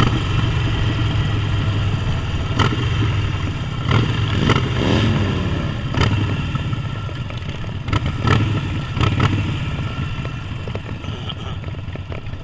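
Harley-Davidson V-twin motorcycle engine running at low road speed, with occasional sharp clicks. The engine note eases off over the last few seconds as the bike slows toward idle.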